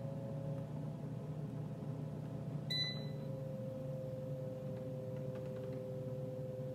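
Touch panel of a 5.2-litre digital air fryer giving one short high beep about three seconds in as a button is pressed, over the steady hum of the running air fryer.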